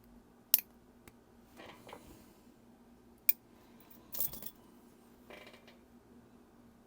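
A few sharp clicks and light scrapes of small hard parts being handled, as a watch case and small tools are moved about on a workbench. Two loud single clicks come about half a second in and a little past three seconds, then a quick cluster of clicks just after four seconds, with softer scraping in between.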